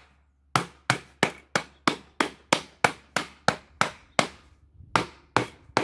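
Mallet striking the gasket lid of a plastic food-grade bucket, sharp knocks about three a second, with a short pause about four seconds in before the blows resume. The lid is being hammered down to seal the nitrogen-flushed bucket.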